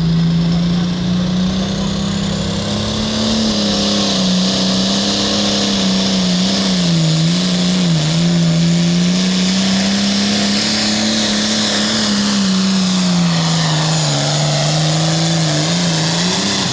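An International Harvester 1066 Limited Pro Stock pulling tractor's turbocharged diesel at full throttle, hauling the weight sled down the track. The engine note climbs in the first few seconds, with a high turbo whine rising along with it, then wavers up and down as the engine loads and recovers under the pull.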